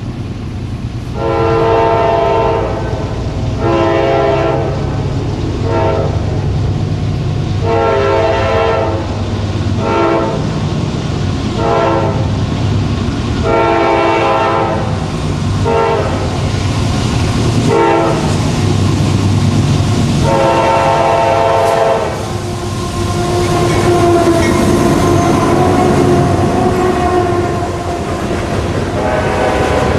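A freight locomotive's multi-note air horn sounding long and short blasts again and again at a grade crossing, over the low rumble of the diesel engine. From about two-thirds of the way in the horn stops and the passing freight cars clatter over the rail joints, with one more horn blast near the end.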